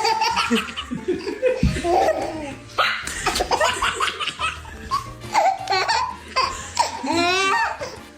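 A baby laughing in repeated bursts and squealing, with one long gliding squeal near the end, over background music.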